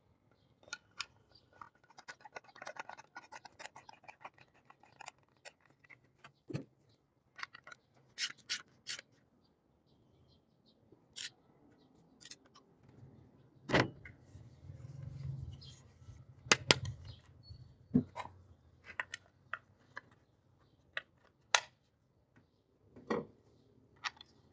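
Shotgun stock and metal parts being handled on a bench: scattered sharp clicks and knocks, a stretch of scraping and rubbing in the first few seconds, and a few louder knocks from the middle on.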